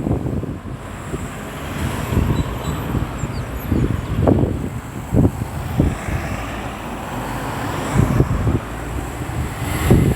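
Road traffic moving around a busy roundabout, with wind buffeting the microphone in repeated low rumbling gusts.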